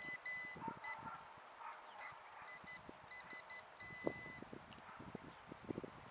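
Metal detector sounding its target tone: a run of high-pitched beeps, some short and some drawn out, that stops about four seconds in. After it come short scraping and crunching sounds.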